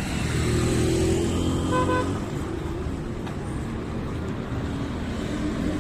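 Street traffic: motor vehicle engines running steadily, with a short car horn toot about two seconds in.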